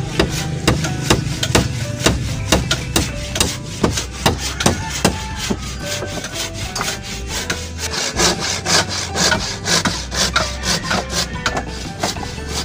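Handsaw cutting through a wooden plank in rapid back-and-forth strokes.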